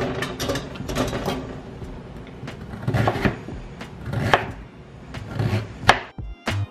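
Chef's knife slicing carrots into rounds on a wooden cutting board, a series of separate knocks of the blade against the wood, after carrot pieces are dropped into a stainless steel steamer basket.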